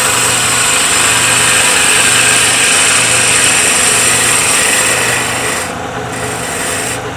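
A spindle gouge cutting along a wooden spindle spinning on a wood lathe at about 1800 RPM: a steady, loud noise of the cut and flying shavings over the lathe's motor hum. The cut breaks off briefly about six seconds in and eases near the end.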